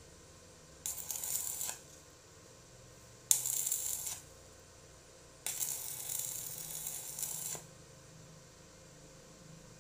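Three bursts of hiss, each starting and stopping abruptly: two of about a second each, then one of about two seconds.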